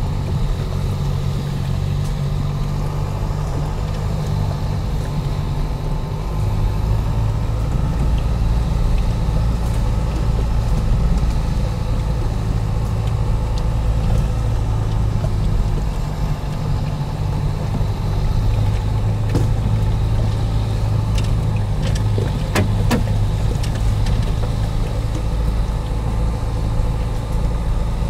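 Dacia Duster running at low speed on a rough dirt track, heard from inside the cabin: a steady low engine and road rumble, with a few sharp knocks and rattles over the ruts about three quarters of the way through.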